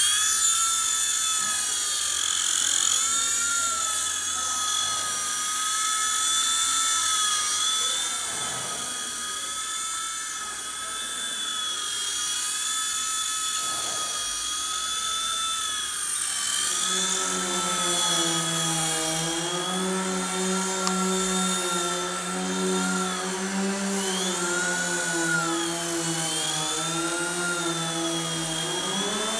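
Micro RC helicopter's small electric motors and rotors running with a high-pitched whine whose pitch wavers up and down as the throttle changes. About halfway through a lower hum joins in.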